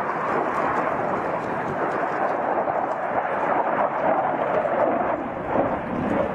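JF-17 Thunder fighter's single RD-93 turbofan roaring in a display pass overhead: a loud, steady, rushing jet roar that dips briefly about five seconds in.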